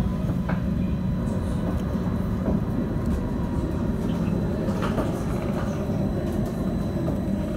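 Edinburgh tram, a CAF Urbos 3, running along the line, heard from inside the passenger saloon: a steady low rumble of wheels on rail and running gear, with a faint thin high tone and a few light clicks.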